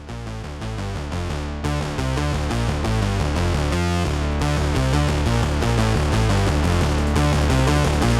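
Electronic background music with a synthesizer melody and a steady beat, fading in over the first two seconds.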